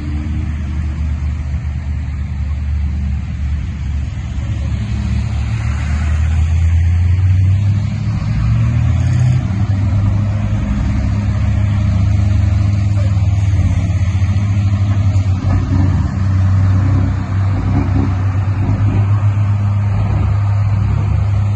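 A motor vehicle running, a steady low rumble.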